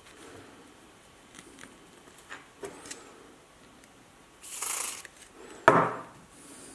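Small objects handled on a hard work surface: a few light clicks, a brief hiss past the middle, then a sharp knock with a short ring near the end, the loudest sound.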